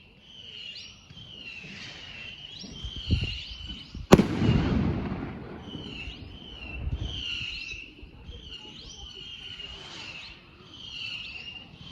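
A firework goes off with one sharp, loud bang about four seconds in, a duller thump just before it. Under it, a high warbling call repeats about once a second.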